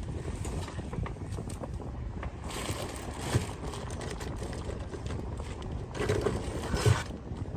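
Battery-powered high-voltage generator module arcing across its electrode gap in two bursts of about a second each, the second about three seconds after the first, while the gap clearance is tested.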